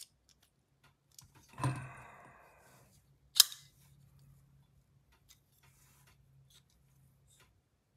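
Quiet bench handling of a folding knife during pivot reassembly: a brief soft scrape about a second and a half in, then a single sharp click a little over three seconds in.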